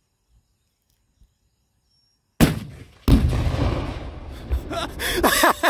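A sharp rifle crack, then about a second later the heavy boom of the Tannerite charge going off in the car, rolling and fading over a couple of seconds. Excited shouts follow near the end.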